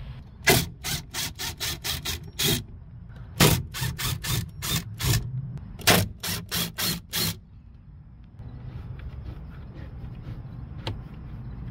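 Cordless RIDGID driver backing screws out of a wooden door post in short trigger pulses: three runs of quick bursts, about four a second. After that it goes quiet apart from a faint hiss and one click near the end.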